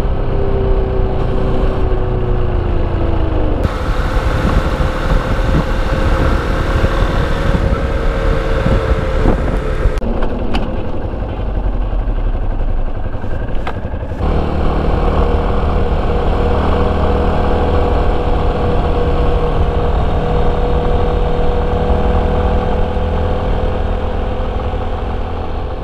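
Motorcycle engine running while riding, with a steady pitched hum and road and wind noise. The pitch sinks slowly in the first few seconds, and the sound changes abruptly a few times.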